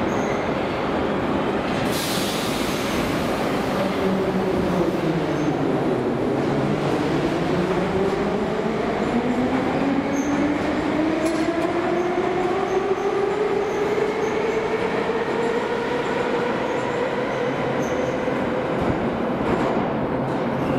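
81-717/714 "Nomernoy" metro train pulling into the station and slowing to a stop: steady wheel-and-rail rumble under an electric motor whine. The whine falls in pitch early on, then several tones rise steadily for the rest of the time. A short hiss comes about two seconds in.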